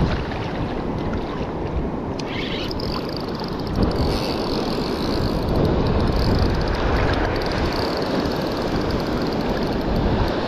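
Wind buffeting the microphone over surf washing around the wader, a steady deep rush.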